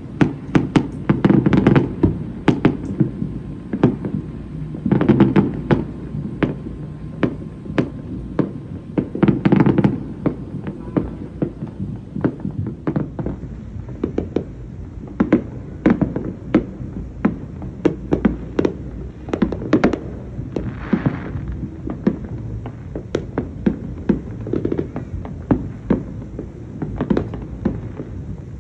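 Many fireworks going off across the water, a steady run of bangs and pops with dense clusters about a second in, around five seconds and around ten seconds.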